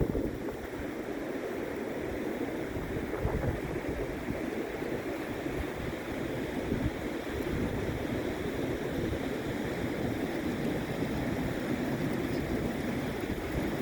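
Big waves breaking and washing in as steady surf, with gusty wind buffeting the microphone as a ragged low rumble.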